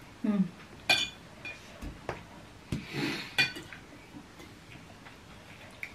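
Metal forks clinking and scraping on ceramic plates during a meal, with two clear ringing clinks, one about a second in and one about three and a half seconds in, and a few softer taps between them.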